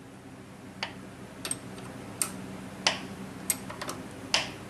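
A series of about seven sharp clicks and taps, irregularly spaced, over a steady low hum: small handling noises of hand work on the car.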